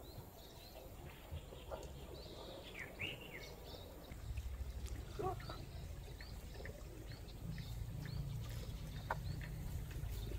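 Faint outdoor ambience of small birds giving short, scattered chirps, with a low rumble underneath that grows louder from about four seconds in.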